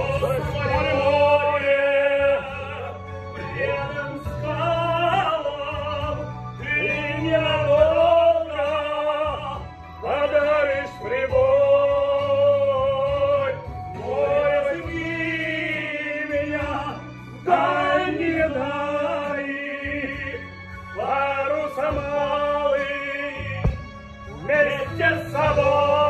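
Male voice singing in operatic style, with long held notes and wide vibrato broken by short breaths, over a steady instrumental accompaniment.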